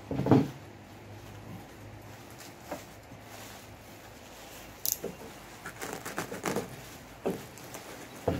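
Plastic bubble wrap being cut open and pulled off an electronic keyboard: irregular crinkling and rustling, with a louder handling noise at the start and a short sharp scrape about five seconds in. A faint low hum runs underneath.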